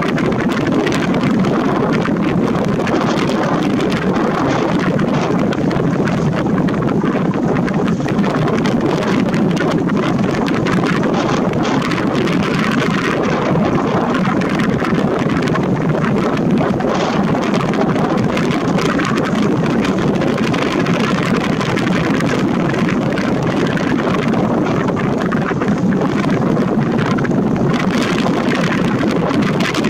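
Wind blowing on a microphone with no foam windscreen, a loud, steady rush of noise.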